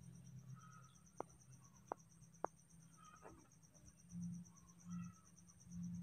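Faint background with a steady high-pitched pulsing chirr, like an insect's, and three soft clicks in the first half.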